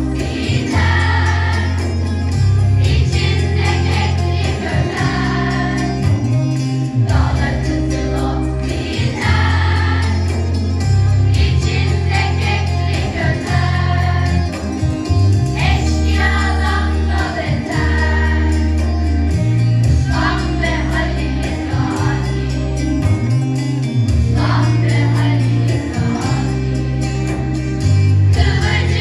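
Middle-school choir of mixed young voices singing a Turkish song in unison, over an accompaniment with a steady bass line.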